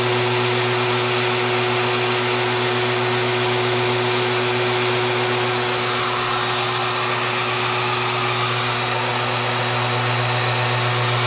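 Ridgid router on a Maslow CNC sled running steadily at speed, a loud even whine and hiss, shifting slightly in tone around the middle as the machine runs its test pattern.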